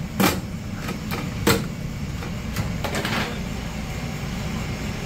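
Fish frying in a commercial deep fryer, the oil sizzling over a steady low hum. Wire fryer baskets clank against the steel fryer twice in the first couple of seconds.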